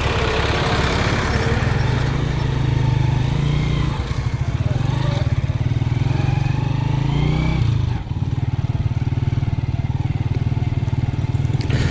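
Motorcycle engine running steadily at low speed while riding over a sandy dirt road. The engine note dips briefly about eight seconds in, then carries on.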